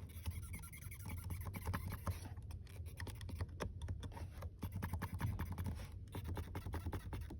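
Interior trim of a new Toyota Land Cruiser 300 creaking and crackling in quick, irregular little clicks as it is pressed, over a low steady hum. This is the squeak the owner puts down to a fault somewhere on the right side of the cabin.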